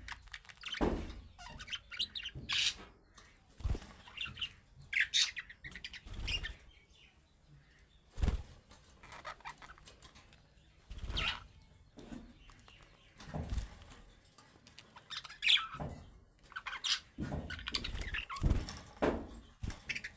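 Budgerigars chirping in short, scattered bursts, with wing flutters and a few brief knocks.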